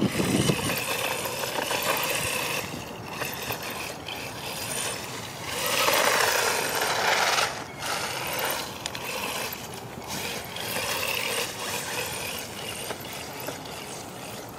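Haiboxing 2995 RC desert truck driving: the electric motor and drivetrain whine, rising and falling with the throttle, while the tyres run through snow and then on pavement. There is a louder burst of speed about six seconds in, and a brief low thump at the very start.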